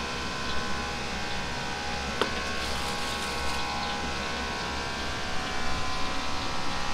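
Steady hum of kitchen machinery with several held tones, a sharp click about two seconds in, and soft knife taps on a plastic cutting block near the end as raw heart is sliced.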